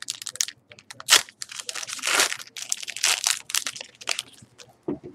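Foil trading-card pack wrapper crinkling and tearing in the hands as the pack is opened and the cards pulled out. Irregular crackles and rustles, with one sharp crack about a second in.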